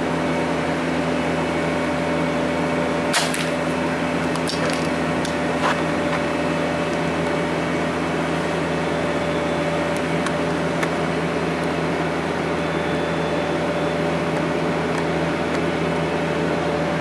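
Steady machine hum, like a motor or fan running, holding several even tones. A single sharp click about three seconds in, and a few fainter clicks over the next few seconds.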